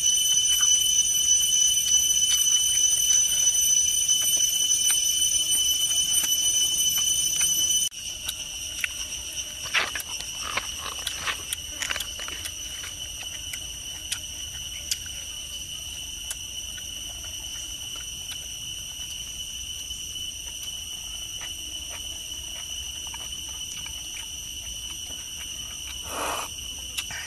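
Steady high drone of forest insects, several even tones that drop suddenly in level about eight seconds in. Over it come short wet clicks of lip-smacking and chewing around ten to twelve seconds in, and a brief slurp near the end as soup is sipped from a coconut-shell bowl.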